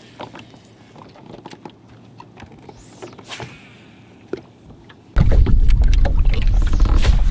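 Quiet boat-deck sounds with a few light clicks and knocks. About five seconds in, a loud, steady low rumble cuts in suddenly: a bass boat running on the water.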